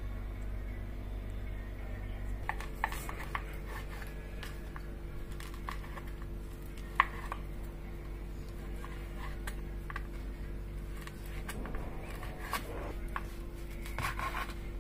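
Kitchen knife cutting dried figs on a wooden cutting board: scattered, irregular knocks of the blade through the fruit onto the board, the sharpest about seven seconds in, over a steady low hum.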